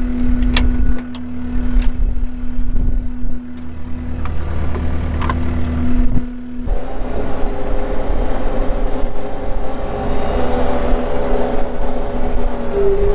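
Skid steer engine running under load inside the cab while the bucket pushes snow, with a few knocks. About two thirds of the way through its steady low drone gives way to a higher, busier tone.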